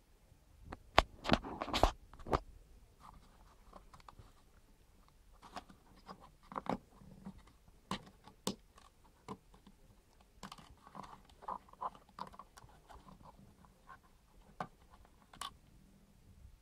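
Handling noise on the plastic back of a Nokia 1011 GSM phone: a burst of sharp clicks and knocks about a second in, then scattered small clicks and light scraping as a thumb slides the full-size SIM card out of its slot.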